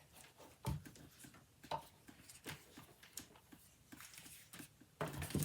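Faint, irregular knocks, clicks and rustles of small accessories and packaging being handled while searching through a radio's box.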